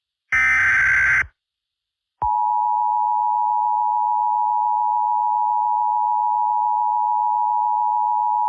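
Emergency Alert System tones. A burst of SAME digital header data lasts about a second, and after a short gap the steady two-tone EAS attention signal starts about two seconds in and holds.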